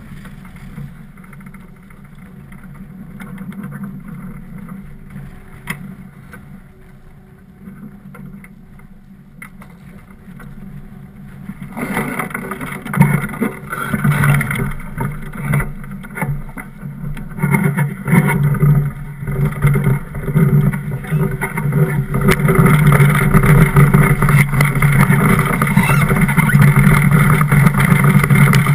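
DN iceboat's steel runners rumbling and hissing over the ice with wind on the microphone: fairly quiet at first, then from about twelve seconds in a loud rumble sets in and grows as the boat picks up speed.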